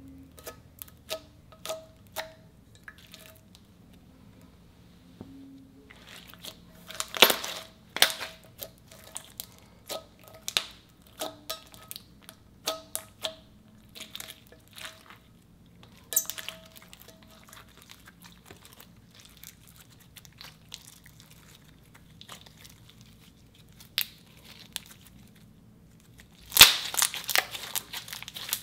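Clear slime coloured purple being poked, stretched and squeezed by hand, giving a run of sharp clicking pops and crackles as it squishes. Near the end comes a dense flurry of pops as it is balled up and squeezed in both hands.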